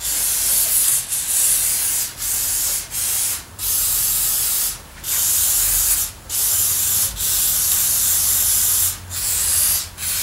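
Aerosol can of penetrating oil spraying in repeated spurts, a hiss that stops and starts about eight times with short breaks, as a rusted-solid cast iron vise is soaked down.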